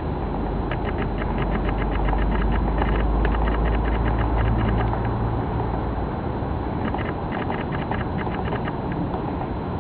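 Hairy woodpecker pecking at bark while foraging: two runs of quick, sharp taps, one in the first few seconds and one near the end. A steady low rumble lies underneath, heavier in the first half.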